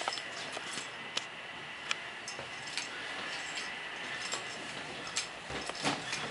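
Quiet room tone with a steady hiss, broken by scattered light clicks and taps about a second apart, and a few duller knocks near the end.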